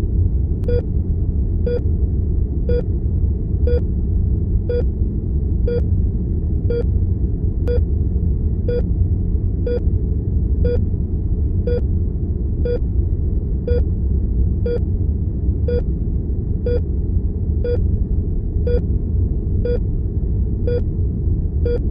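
Heart monitor beeping steadily about once a second, each beep short and pitched, over a steady low rumble of room and equipment noise.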